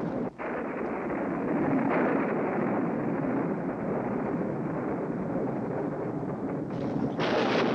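Steady rushing wind, dropping out for a moment just after the start and turning brighter and hissier near the end.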